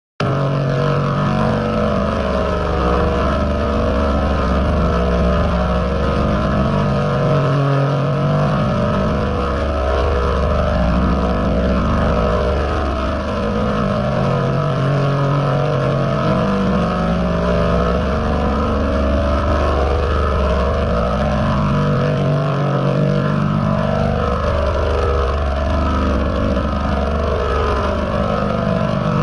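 Heavily distorted, pitch-shifted audio in the style of a YouTube 'G Major' effect: a loud, dense droning wash with sweeping rises and falls in pitch, its pattern repeating about every 15 seconds.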